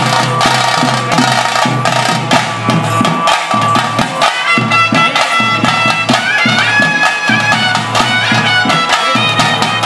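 A flute playing a traditional melody over a steady drone, with drum beats under it: the music that the Babbuswami spirit-dancer dances to.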